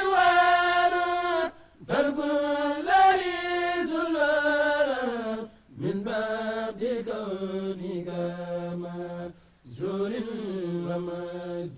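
Male voices chanting an Arabic devotional poem in long, drawn-out melodic phrases, with three short breaks for breath about every four seconds.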